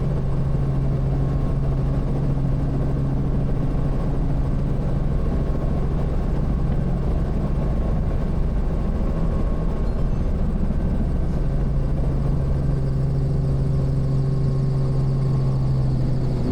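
Robinson R44 Raven I helicopter's six-cylinder Lycoming piston engine and rotors running at a steady pitch, with a strong low hum.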